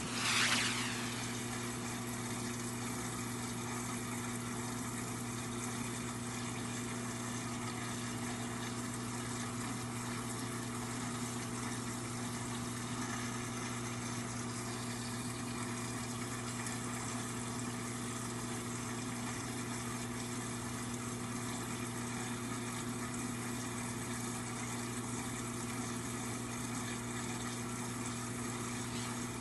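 Reef aquarium pumps running: a steady low hum over an even hiss of circulating water. A brief louder rush comes about half a second in.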